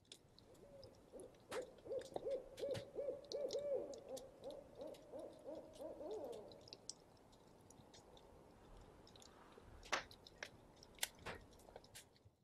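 An owl hooting: a fast run of short hoots on one pitch, lasting about five seconds and trailing off. Faint scattered clicks around it, with a few sharper clicks near the end.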